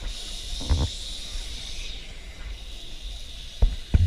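Vintage tram running along its track, heard from the open upper deck: a steady hiss of running and wind, with low thumps about a second in and twice near the end.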